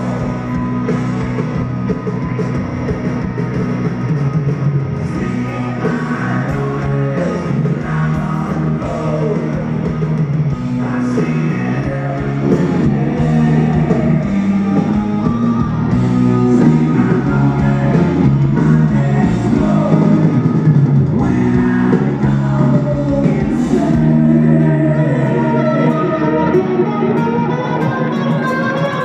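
Live rock band playing, with a lead vocal over electric guitar and drum kit; it gets louder about twelve seconds in.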